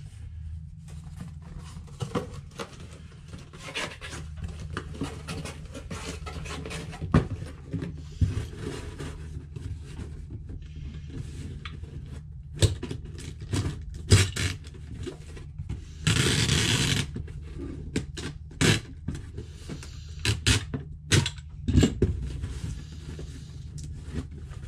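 A small cardboard shipping box and its contents being handled and packed: cardboard rubbing and scraping, with scattered knocks and taps. About two-thirds of the way in there is a louder rasping noise lasting about a second. A steady low hum runs underneath.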